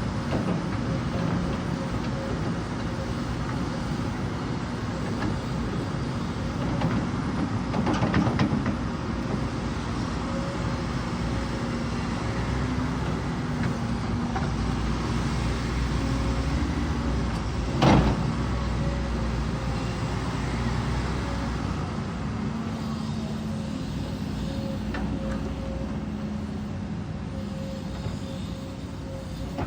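Volvo 210 excavator's diesel engine running steadily under work. It is broken by a rough patch of clattering about eight seconds in and one sharp knock about eighteen seconds in.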